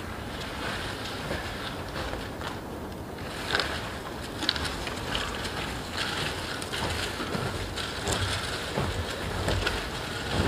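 Footsteps crunching through snow, uneven and growing stronger from about a third of the way in, over a steady low background rumble.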